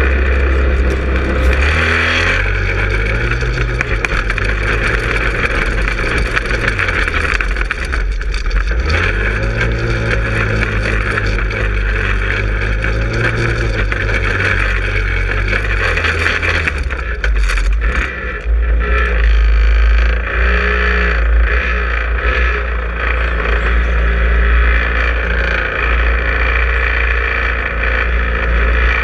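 Manco Helix 150 go-kart engine heard from on board, running continuously, its pitch rising and falling several times as the throttle opens and eases off.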